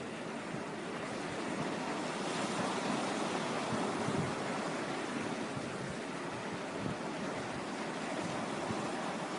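Sea waves washing onto a stony shore, a steady rush of surf that swells a little a few seconds in, with wind buffeting the microphone.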